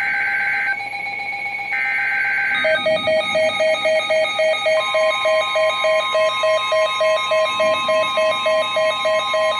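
Emergency Alert System (SAME) digital data bursts, the end-of-message code that follows a weather radio warning: short warbling two-tone squawks, the last ending under 3 s in. Then a rapid electronic alarm beeping starts, about three beeps a second, and a steady tone joins it about 5 s in.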